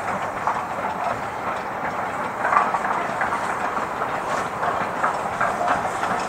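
Train running along the line: a steady rumble with the clatter of wheels on the rails.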